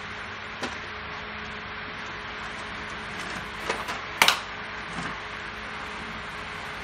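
A few sharp metallic clicks and clinks from a motorcycle's roller drive chain being handled and fed onto the rear sprocket, the loudest about four seconds in, over a steady low hum.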